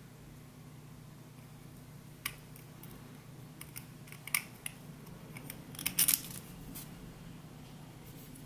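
Hard 3D-printed plastic coupling halves clicking and scraping together as they are handled and fitted by hand: a string of sharp plastic clicks from about two seconds in, the loudest around four and six seconds.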